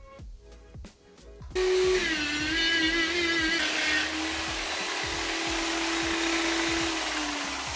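Handheld electric buffer running steadily as it polishes a plastic instrument-cluster lens with rubbing compound; it starts suddenly about a second and a half in and its motor pitch drops a little twice.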